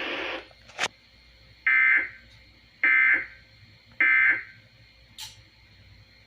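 Three short bursts of Emergency Alert System SAME digital data tones, a buzzy warbling squawk about a second apart: the end-of-message code that closes the alert. A sharp click comes before the bursts and another after them.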